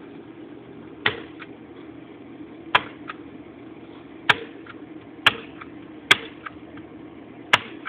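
Six gunshots at irregular intervals of about one to one and a half seconds, each sharp crack followed about a third of a second later by a fainter knock from the round striking the target or echoing back.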